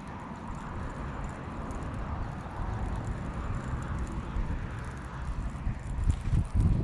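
Outdoor ambience: a low, uneven rumble with a faint steady hiss, getting lumpier near the end.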